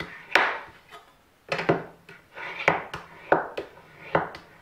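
Steel cabinet scraper rubbed flat against abrasive paper in short hand strokes to fold back its old burr: a series of quick scraping strokes with a pause of about a second near the start.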